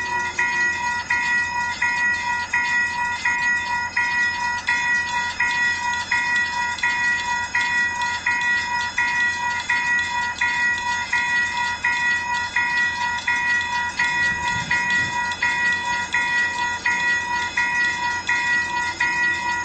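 US railroad crossing bell ringing continuously in a fast, even, unbroken rhythm of strokes.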